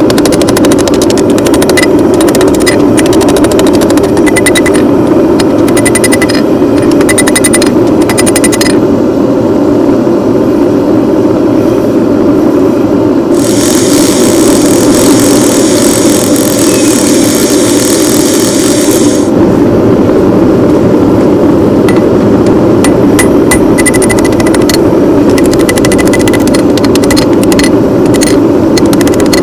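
The forge burner roars steadily and loudly. Over it a hand hammer strikes a hot Damascus steel bar on the anvil in runs of quick ringing blows: one run at the start and another from about two-thirds of the way in. Between them the hammering stops and a hissing sound rises for several seconds.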